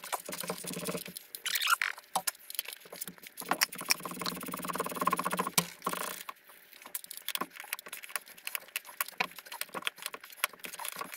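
Metal hand tools clinking and clicking irregularly as a wrench is worked on a brake master cylinder's bolts and fittings. A low hum sounds in the first second and again from about three and a half to six seconds in.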